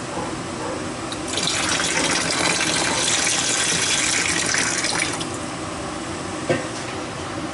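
Water poured from above into a plastic tub water dish, splashing steadily for about four seconds and then stopping. A single sharp knock follows near the end.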